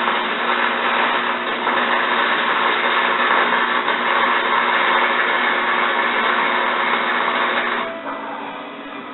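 A home-built steel trommel drum spinning on its drive, giving a steady mechanical whirring rattle with a faint hum. The noise falls away sharply about eight seconds in.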